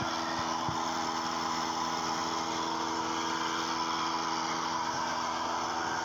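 Steady running hum of a motor or engine, constant in pitch and level throughout.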